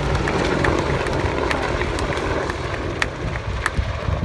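Boeing AH-64 Apache attack helicopter flying past, the steady drone of its rotor and engines fading slightly as it moves away. A few sharp clicks sound over it.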